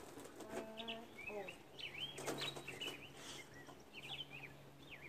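Small songbirds chirping again and again, quick notes that sweep up and down, with a few soft clicks and knocks between them.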